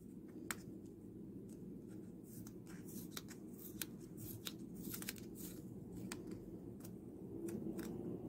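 Faint paper rustling and crinkling as a patterned paper envelope of trading-card mail is handled and opened, with many small sharp crackles and ticks scattered through it over a low steady hum.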